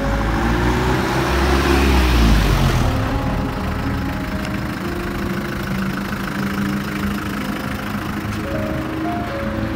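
A small box truck's engine drives past close by, growing loudest about two seconds in and dying away within a second after. Steady street traffic noise follows.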